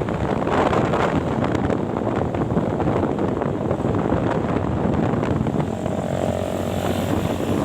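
Road noise from a bus and passing traffic, a steady loud rush with wind buffeting the microphone. A faint steady tone comes in near the end.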